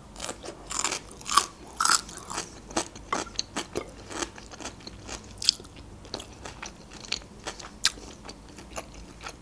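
Biting into a fresh cucumber stick and chewing it: a run of irregular crisp crunches, thickest in the first couple of seconds.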